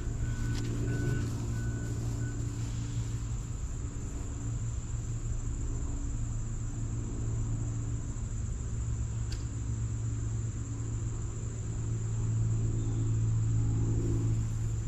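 A steady low mechanical hum that swells and fades a few times, loudest near the end.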